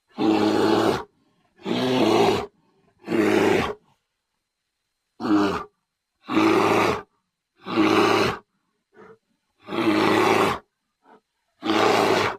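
Bear roaring: eight short roars of about a second or less each, separated by dead silence.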